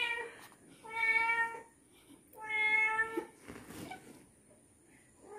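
A young kitten meowing three times, each a steady, level meow under a second long.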